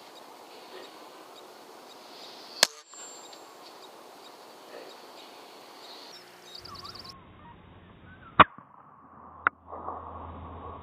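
Air rifle shots, sharp short cracks: one about two and a half seconds in, the loudest about eight seconds in and another a second after it, over a steady background hiss.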